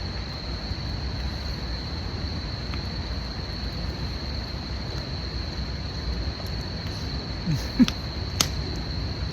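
Insects singing a steady, unbroken high trill over a low rumbling background, with a few sharp clicks near the end.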